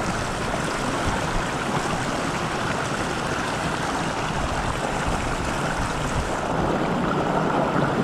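Shallow rocky stream rushing steadily through a riffle, water pouring over and between rocks and blocks.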